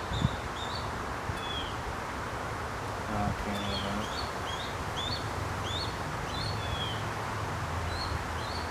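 A bird chirping in runs of short, quick repeated notes, with a pause of a second or two midway, over a steady low background hum.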